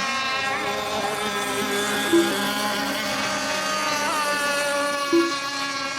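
Several radio-controlled racing boats running on the course, their motors making a steady, layered whine at several slightly different pitches.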